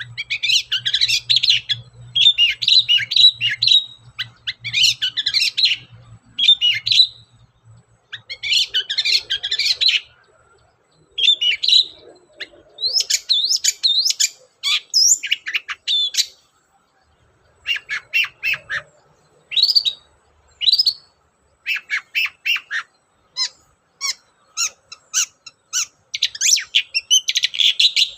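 Long-tailed shrike (cendet) singing in quick, scratchy phrases of one to two seconds with short pauses between them. The song is of the mimicry-rich, full-on 'gacor' kind.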